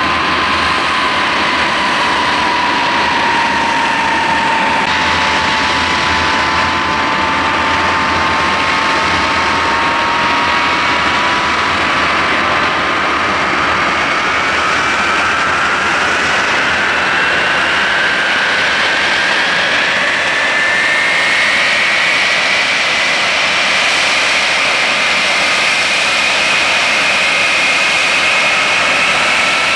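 Handley Page Victor K2's Rolls-Royce Conway jet engines running with a loud whine and rush of noise. The whine dips slightly at first, then rises steadily in pitch as the engines spool up, and holds high near the end.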